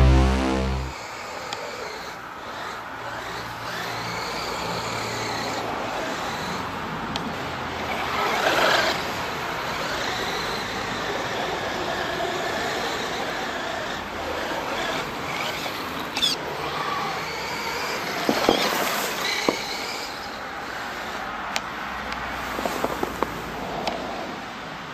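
Electric RC buggy with a brushed motor on an HPI SC-15WP controller, whining up and down in pitch as it speeds up and slows, its crawler tyres churning through snow, with a few sharp clicks and knocks. Music ends about a second in.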